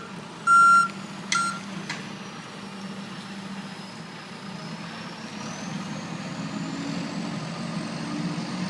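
A work vehicle's reversing alarm beeps twice near the start, then the engine keeps running steadily, with a faint high whine slowly rising.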